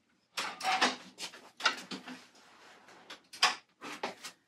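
Rustling of clothing being handled and set aside, in several short bursts with a few light knocks.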